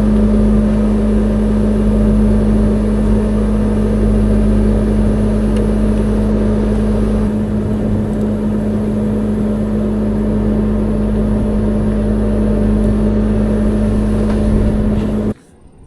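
An engine running steadily at a constant speed with a strong even hum, which cuts off abruptly near the end.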